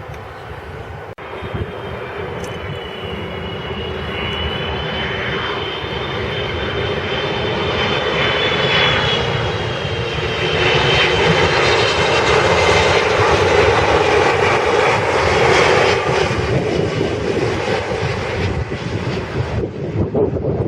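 Jet airliner's engines passing close, the noise building steadily for over ten seconds with a high whine on top, then easing slightly near the end.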